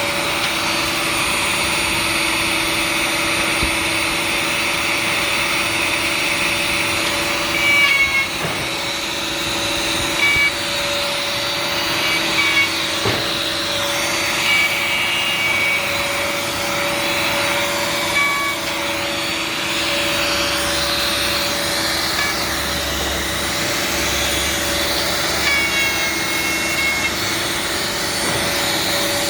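A machine running steadily, humming on two low tones over a hiss, with short high squeaks now and then.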